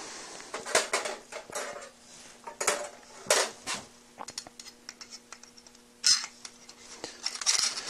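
Metal clinking and scraping as threaded rod is fed through the holes of the grill's metal crossbar tube among its thin metal rods: an irregular string of small ticks and scrapes with a few sharper clinks.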